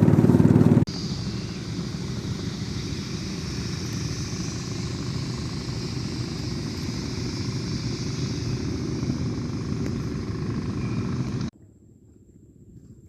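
An engine running steadily. The sound drops abruptly less than a second in, then stops suddenly near the end.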